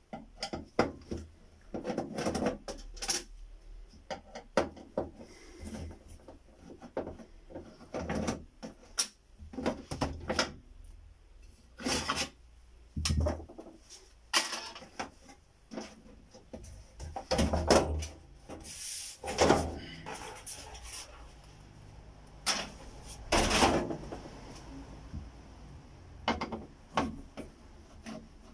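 Plastic back cover of a Samsung LCD TV being unscrewed and lifted off its metal chassis: an irregular run of clicks, knocks and plastic rubbing and scraping, with a few louder, longer scrapes in the second half.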